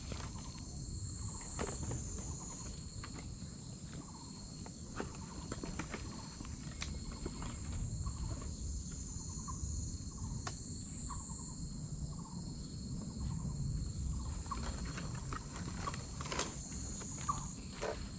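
Insects shrilling steadily high up, swelling now and then, over a low rumble, with scattered light clicks and rustles from gear being handled in a backpack, more of them near the end.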